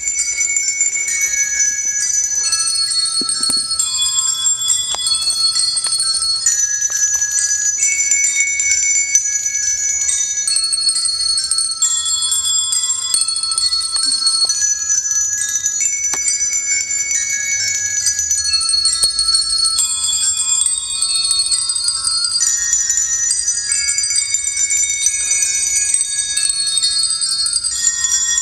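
Handbells ringing in overlapping layers: many high, steady bell tones held for a second or more each, the notes changing every second or two, with a few faint clicks.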